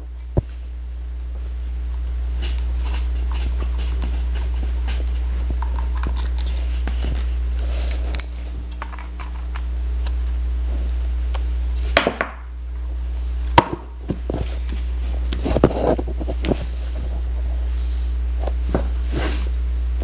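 A steady low hum, with small metal clicks and taps as a precision screwdriver backs screws out of a laptop hard drive's mounting bracket. A few sharper clicks come in the second half.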